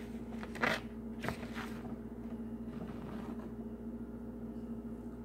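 Paper instruction sheet rustling as it is handled, with a short crackle a little under a second in and softer ones around a second and a half, over a steady low electrical hum.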